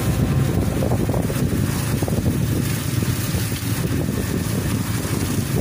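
Garden hose with a spray nozzle shooting a jet of water onto a tanker truck's tank: a steady hiss of spray over a low rumble.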